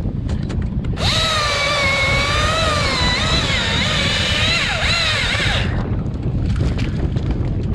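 Chainsaw running for about five seconds, starting abruptly about a second in, its whine wavering and dipping in pitch as it cuts through a branch. Wind noise on the microphone throughout.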